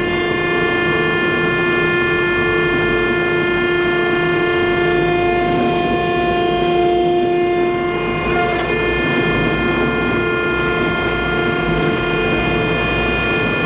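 1953 Landis CH hydraulic universal cylindrical grinder running: a steady whine and hum, mostly from its hydraulic unit, together with the spinning grinding wheel. The pitch of some of the tones shifts about eight seconds in.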